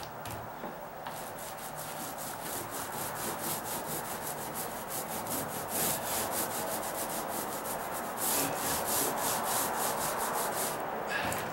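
Paint roller on an extension pole rolling wet paint across a deck floor: a rough rub with a fast, regular crackle from the roller nap, starting about a second in and stopping near the end.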